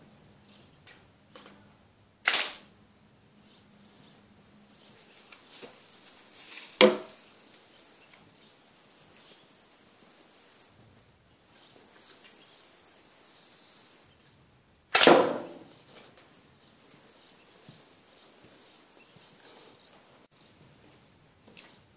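Homemade longbow made from a wooden bed slat being shot: three loud, sharp snaps, about two, seven and fifteen seconds in.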